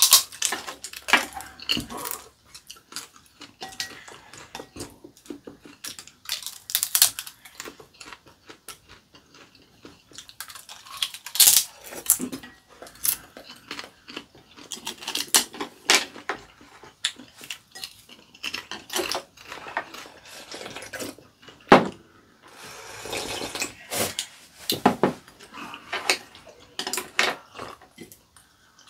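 Eating at a table: chopsticks and spoons clicking and scraping against ceramic bowls and plates in many short, irregular knocks, with chewing between them.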